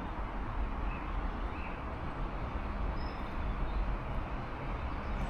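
Steady low outdoor rumble of distant traffic, with a few faint, brief bird chirps.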